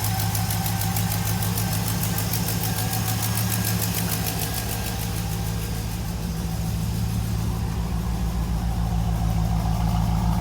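Third-generation Camaro engine idling steadily on a newly fitted 650 Holley Brawler carburetor, running smoothly.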